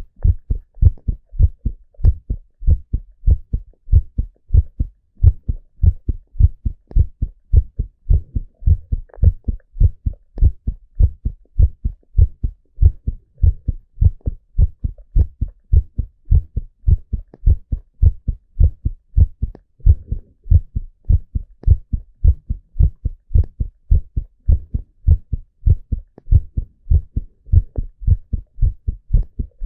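A man's heartbeat heard through a stethoscope on the chest: low thuds repeating in a steady, even rhythm.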